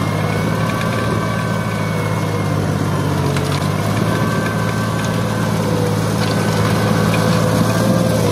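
Türk Fiat 480 Turbo tractor's turbocharged diesel engine running steadily under heavy load while pulling a three-bottom moldboard plough through hard, dry ground.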